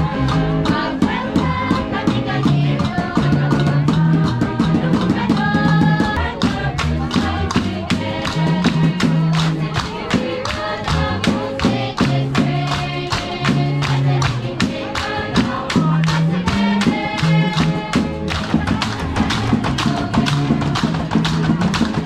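Music with a steady beat and a moving bass line.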